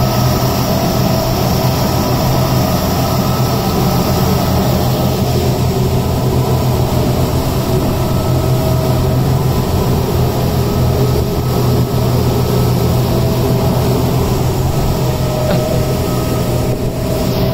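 Twin Honda 225 four-stroke V6 outboard motors pushing a speedboat at speed, a steady low drone that holds even throughout.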